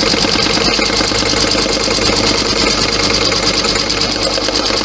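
Brother Innov-is computerized embroidery machine running, its needle stitching at a rapid, steady rhythm while the hoop carriage moves. It is sewing the placement outline of the whole design onto clear vinyl.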